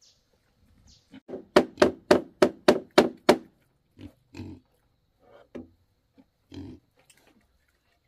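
Hammer blows, a quick run of about eight strikes at roughly four a second, followed by a few scattered, weaker knocks.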